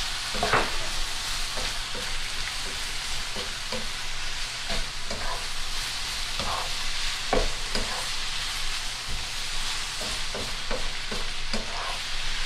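Sliced onions and bell peppers sizzling steadily in a hot frying pan while a spatula stirs them, knocking and scraping against the pan every second or so.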